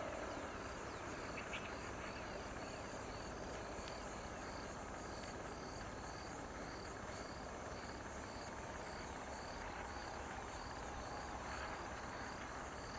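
Steady outdoor background hiss with a small animal's short high chirp repeating about every half second, like a calling insect.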